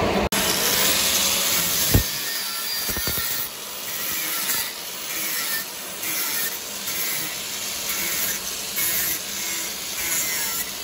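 Angle grinder grinding a weld on a steel plate: a harsh, hissing grind whose level swells and dips about once a second as the disc is pressed on and eased off the metal, with a sharp click about two seconds in.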